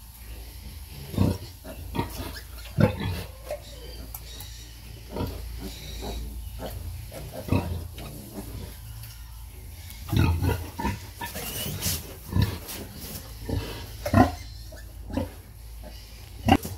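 Pigs grunting while a sow nurses her litter of piglets: short, low grunts every second or so, with a few louder ones and a brief sharper call about twelve seconds in.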